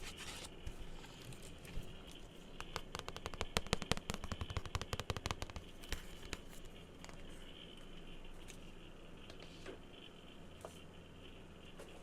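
Fingertips and nails tapping on an object: a fast, dense run of light clicks for a few seconds, then slower, scattered taps.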